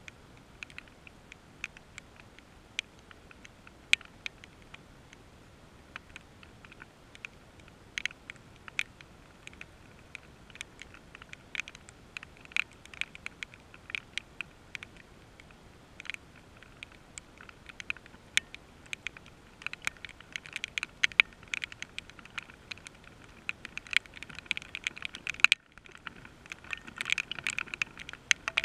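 Raindrops tapping irregularly on a hard surface close to the microphone: a few scattered ticks a second at first, growing denser and more rapid near the end.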